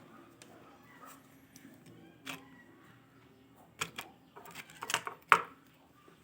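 Small sharp clicks and taps of hand tools working on an opened mobile phone. There is a single click a little past two seconds in, then a quick cluster of several in the last two seconds, the loudest near the end.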